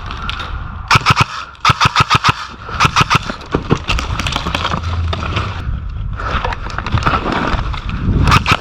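Airsoft electric gun (AKS74U-style AEG) firing several short full-auto bursts, each a rapid string of sharp clicks at roughly ten shots a second, the last burst near the end.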